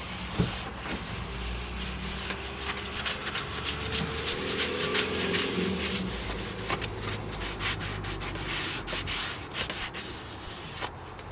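A farrier's tool rubbing and scraping against a horse's hoof in quick, irregular strokes.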